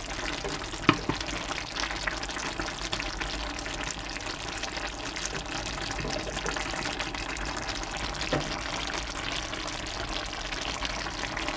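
Spaghetti and chicken stew simmering and crackling in a terracotta cazuela, still cooking on residual heat after the gas flame is turned off. A sharp click about a second in and a fainter one near the end.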